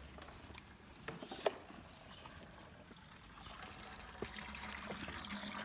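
Water trickling and pouring, growing louder about three and a half seconds in, with a sharp knock about a second and a half in.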